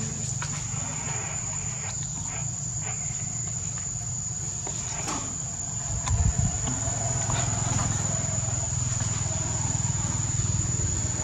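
Insects, crickets or cicadas, keeping up a steady high-pitched drone over a steady low hum, with a single low thump about six seconds in.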